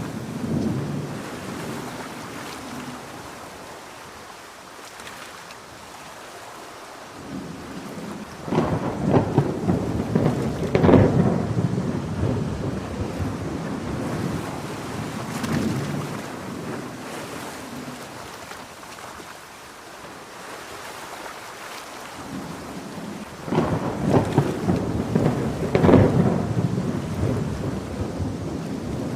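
Steady heavy rain with two long, loud rolls of thunder: one starting about eight seconds in and another about twenty-three seconds in, each building and then fading over several seconds.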